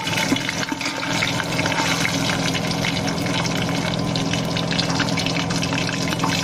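Cashews and whole spices frying in hot oil: a steady sizzle with many small crackles.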